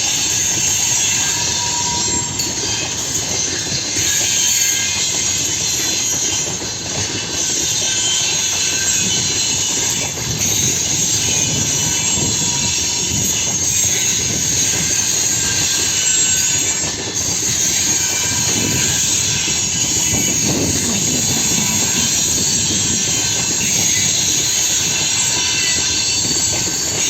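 Freight train rolling past, its wagon wheels clattering and rumbling on the rails with a steady high squeal over the top.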